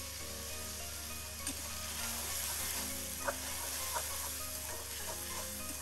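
Onions and green chillies sizzling in oil in a metal karai while a metal spatula stirs them, with a few sharp clicks of the spatula against the pan.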